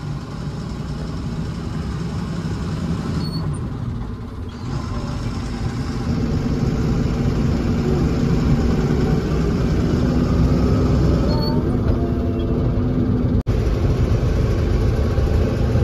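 Lorry engine and road noise heard from inside the cab while driving: a steady drone with road rumble that grows louder about six seconds in as the truck pulls harder, with a momentary drop-out near the end.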